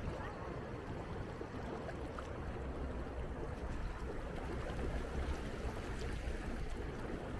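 Whirlpool tub jets churning the water, a steady bubbling.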